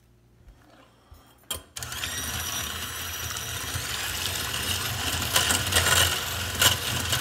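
Electric hand mixer switched on with a click about a second and a half in, then its motor running steadily as it beats eggs in a glass bowl. The motor's whine steps up in pitch a couple of seconds later, and the beaters knock against the glass a few times near the end.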